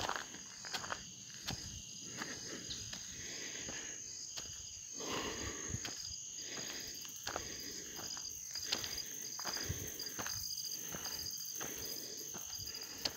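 Insects keep up a steady high drone, joined about halfway through by a short chirp repeated over and over. Under them are the regular soft knocks of footsteps walking.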